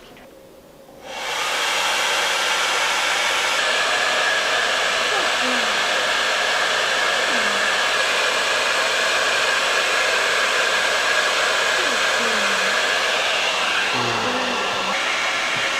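Hair dryer switched on about a second in, then running steadily to blow-dry a freshly bathed kitten.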